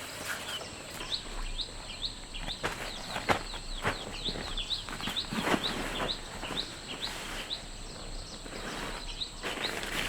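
A bird calling over and over in short, high, rising chirps, about three a second, with irregular knocks and rustling close by.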